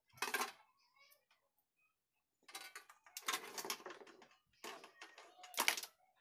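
Handling noise from working on rice cooker parts: several bursts of clattering and scraping. There is a short one at the start, a longer one of about two seconds in the middle, and two short ones near the end.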